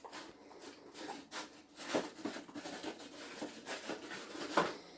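Dog eating from a bowl: irregular crunching and rustling noises, loudest about two seconds in and again near the end.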